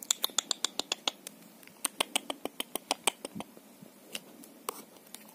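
Rapid sharp clicks and taps of a hard plastic pen knocking against a turtle's beak and shell as the turtle bites down on it: one quick run of about eight clicks a second, then a second run, then a few single clicks near the end.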